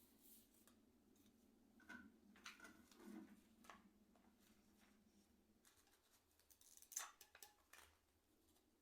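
Faint, scattered small clicks and scrapes of keyboard parts being handled and cleaned, the sharpest click about seven seconds in.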